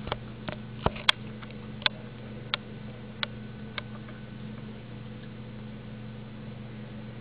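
A steady low electrical hum with a series of sharp, irregular clicks and taps over the first four seconds, then only the hum.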